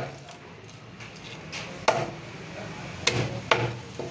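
Long knife scraping scales off a whole silver carp against a wooden cutting board: a few sharp knocks and scrapes, one about halfway through and two close together near the end.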